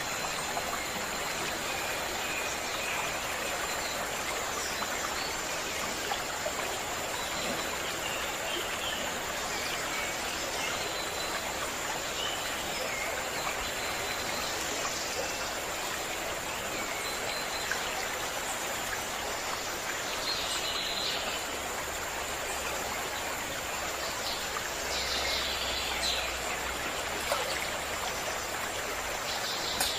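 Running water of a stream, a steady rushing wash, with short bird chirps now and then over it.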